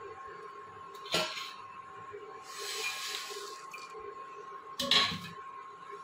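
Water bubbling at a boil in a stainless-steel pot as dry noodles are dropped in, with a brief hiss in the middle. Two sharp metal clinks of the pot and its steel lid, about a second in and near the end, the second the louder. A steady thin whine runs underneath.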